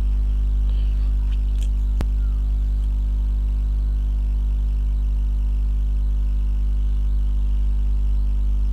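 Steady low electrical hum from the recording chain, with one sharp click about two seconds in.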